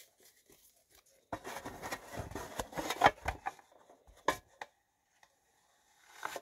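Trading cards being handled: about a second in comes a couple of seconds of rustling and scraping with clicks, then a few sharp clicks.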